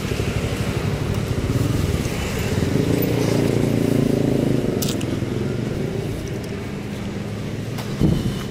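Street traffic: a motor vehicle's engine passing close, growing louder toward the middle and then fading, with a short click about five seconds in.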